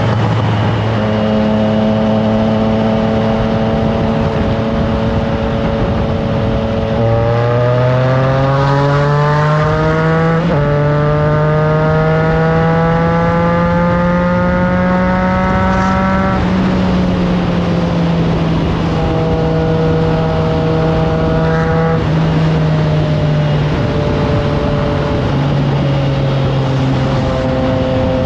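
Triumph Trident 660's inline three-cylinder engine through a FireTong exhaust, on the move: it holds a steady speed, then accelerates with rising pitch from about 7 seconds in, with a quick upshift a few seconds later, pulls on until about 16 seconds, then eases off with falling pitch and a few step-downs near the end. Wind noise on the microphone throughout.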